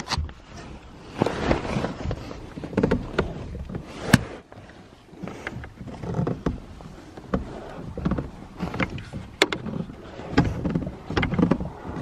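Rustling and shuffling as a person climbs into a car's trunk over a sleeping bag, with a couple of sharp knocks against the car along the way.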